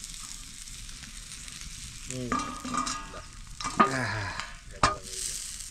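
Meat sizzling on a hot stone slab, a steady hiss. From about two seconds in, a person's voice comes and goes over it.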